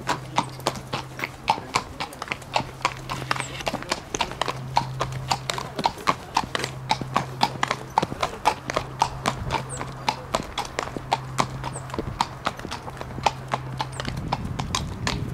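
Hooves clip-clopping, about three or four steps a second, over a low hum that comes and goes.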